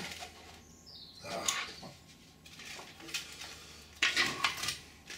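Light knocks, clicks and scraping of cast foam wing-skin parts being handled and set down, with a rustling scrape a little over a second in and a quick cluster of knocks about four seconds in.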